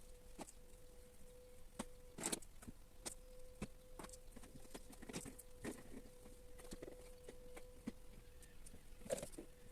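Faint, scattered clicks and rustles of crocheted panels being handled and fastened together with clips, a few clicks louder than the rest, over a faint steady hum.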